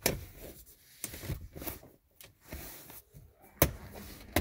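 Plastic instrument-panel trim of a 2011 Nissan Murano being pushed up into place by hand, with scraping and handling of plastic and a loud sharp click about three and a half seconds in as a clip snaps home, then another click near the end.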